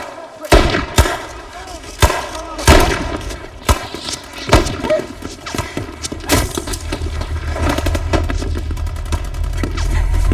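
Gunfire: several single rifle shots, about a second apart, then a faster rattle of shots over a low rumble that grows toward the end.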